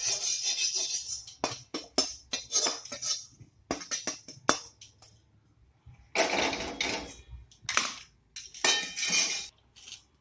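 Roasted sesame seeds being tipped and scraped out of a steel kadai onto a steel plate: a dense metallic rattle and clinking of seeds and steel for about four and a half seconds, followed by a few separate rustling bursts.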